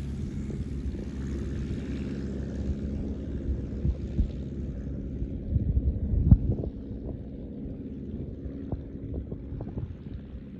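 Liberty XL2 light aircraft's propeller engine droning steadily as it climbs away after takeoff, fading with distance. Wind buffets the microphone in low gusts, loudest about six seconds in.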